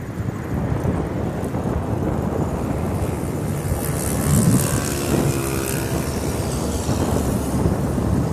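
Wind buffeting the microphone of a camera riding on a moving bicycle, a steady low rumble, with a faint higher whine about halfway through.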